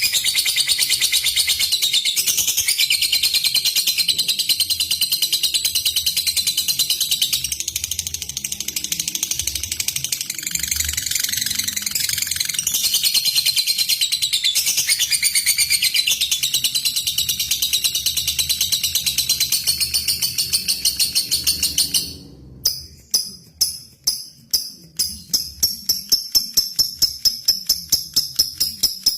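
Lovebird chattering in one long unbroken high-pitched trill (ngekek panjang), which stops abruptly about three-quarters of the way through. Then comes a fast run of sharp ticking chirps (ngetik), about four or five a second.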